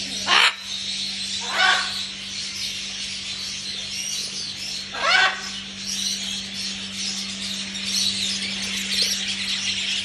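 Parrots in a pet shop giving three loud, harsh squawks, about half a second in, near two seconds and about five seconds in, over a constant chatter of many small caged birds chirping. A low steady hum runs underneath.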